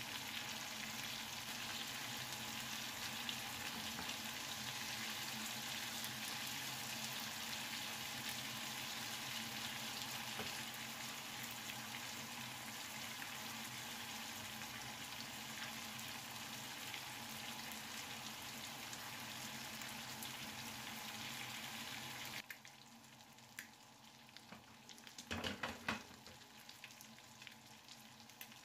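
Prawns sizzling steadily as they shallow-fry in a little oil, their second side being lightly cooked. The sizzle drops away sharply about 22 seconds in, and a short burst of noise follows a few seconds later.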